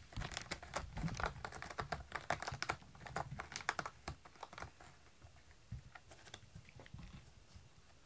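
A cat clawing at a corrugated cardboard scratcher pad: a quick run of small scratchy clicks, busiest in the first half and thinning out after about four seconds.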